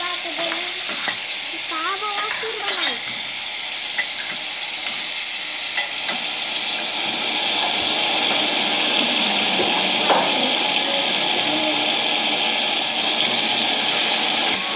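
Paneer cubes in masala gravy sizzling in a kadhai, with a metal spatula stirring and scraping against the pan in occasional clicks. The sizzle grows a little louder and steadier about halfway through.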